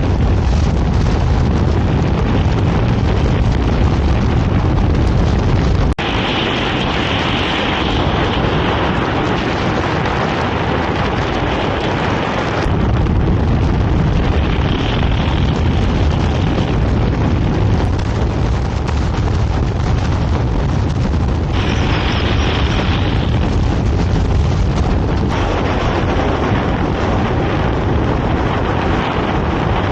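Loud wind rushing and buffeting over the microphone of a moving motorcycle, a steady heavy roar whose character changes abruptly several times.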